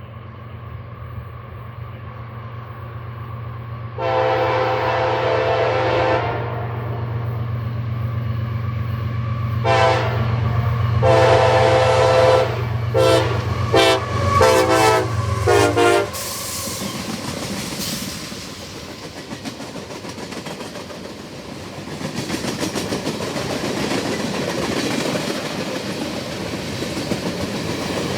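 CSX freight locomotive's Nathan K5LA horn: one long chord a few seconds in, then a quick run of short staccato toots in a horn show, over the locomotive's diesel drone. The train then rolls past with steady wheel-on-rail clatter that grows louder toward the end.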